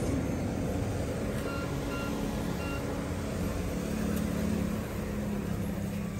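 A motor vehicle's engine running steadily, a low rumble with a faint hum. Three short, faint beeps come about a second and a half to two and a half seconds in.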